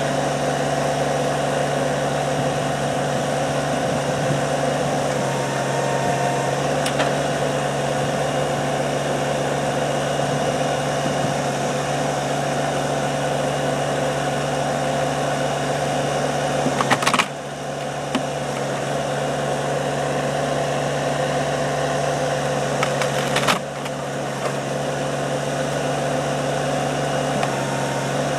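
Kubota compact tractor's diesel engine running steadily as it works its backhoe, with two sharp knocks about six seconds apart past the middle as the bucket pulls at wooden timbers.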